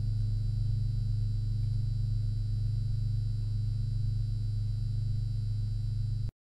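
A steady low hum, even in level, that cuts off suddenly about six seconds in.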